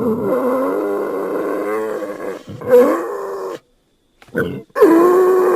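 Wild boar calling: a long, wavering, pitched call, then a shorter one, and after a brief pause another long call begins near the end.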